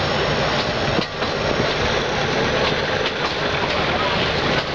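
Passenger train running along the track, heard from an open carriage window: a steady rumbling rush of wheels on rail, with a few clacks over rail joints, one about a second in and one near the end.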